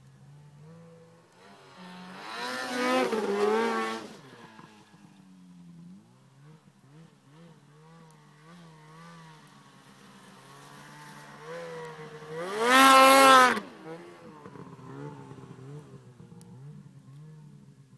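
2009 Can-Am Renegade 800R ATV's V-twin engine, breathing through an aftermarket MBRP exhaust can, running at varying throttle. It revs up hard twice, about two seconds in and again, louder, around thirteen seconds in, with lighter rises and falls in pitch between.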